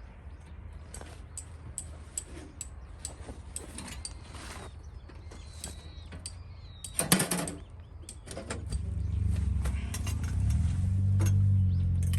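Scattered small clicks and rattles, a loud clatter about seven seconds in, then a steady low hum that starts soon after and grows louder.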